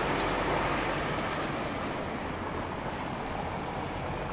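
Steady city traffic noise, with a municipal tanker truck's engine passing close by.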